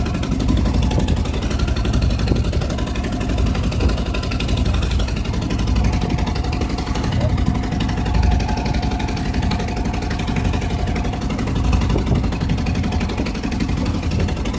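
Small fishing boat's engine running steadily underway, a low throbbing drone, with wind noise over it.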